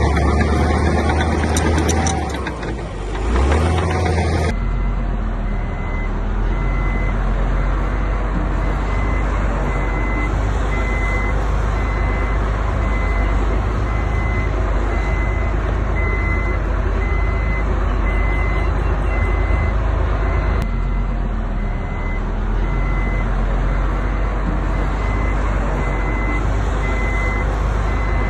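Heavy diesel construction machine running with a deep engine rumble; from about four seconds in, after a cut, its reversing alarm beeps steadily over the engine.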